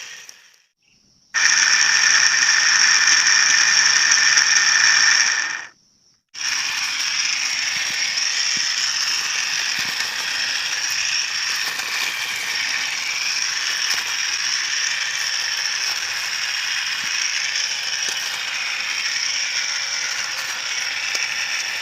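Homemade grass cutter driven by a salvaged electric motor, running steadily. It starts about a second in, cuts out abruptly for half a second a little before the midpoint of the first third, then runs on steadily.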